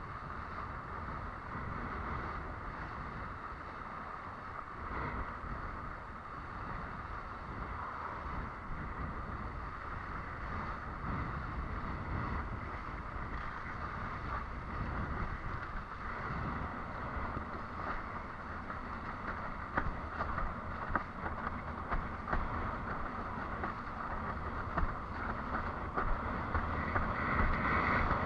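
Wind buffeting the microphone over a steady rush of water from a windsurf board sailing across the sea, with short slaps of water becoming more frequent in the last several seconds.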